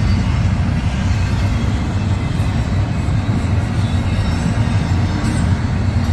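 Freight train rolling past at speed: a steady, loud rumble of wheels on rail.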